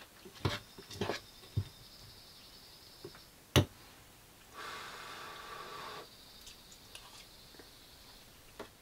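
A spoon clinking and scraping in a bowl of oatmeal while eating: a few light knocks, the loudest about three and a half seconds in. A brief even hiss follows about a second later.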